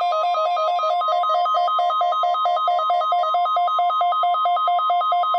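The steady 1050 Hz NOAA Weather Radio warning alarm tone sounds under a weather radio receiver's electronic alert, which beeps rapidly, alternating between a low and a high pitch several times a second.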